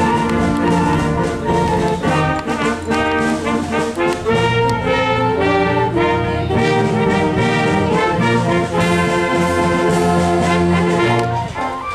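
Concert band playing, with brass instruments to the fore, in held chords. The playing stops near the end.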